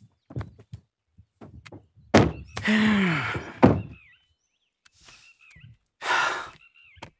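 A car door shutting with a single thunk about two seconds in, followed by a man's drawn-out, falling vocal sound. Short bird chirps come a few times.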